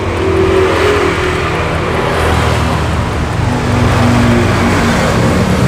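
A motor vehicle engine running close by, a steady low hum that swells a little partway through.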